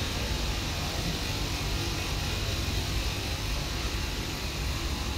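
Steady background noise inside a supermarket: an even low rumble with a hiss over it, like air conditioning and refrigeration, with no distinct events.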